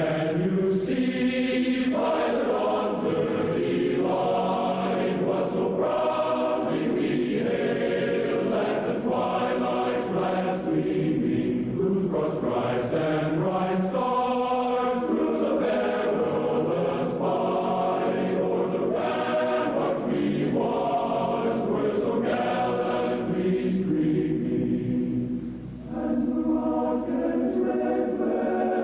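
Choral music: a choir singing long, held notes that change slowly, with a brief drop in level near the end.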